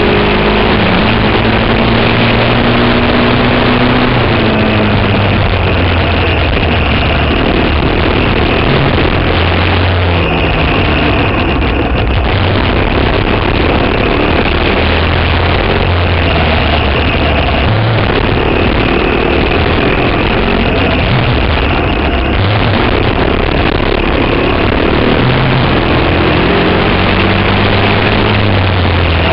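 Briggs & Stratton Animal single-cylinder four-stroke kart engine running hard at race pace. Its pitch climbs and falls every few seconds as it revs out and drops back through the corners. It is heard over heavy wind rush on the kart-mounted microphone.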